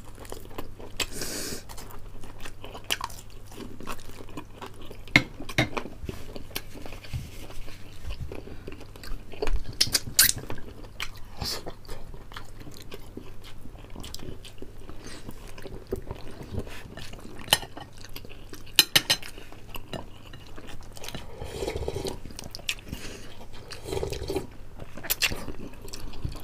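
Close-up eating sounds of two people eating fried chicken and boiled pork leg by hand: chewing, lip smacking and finger sucking. A spoon clinks on plates now and then, giving scattered sharp clicks.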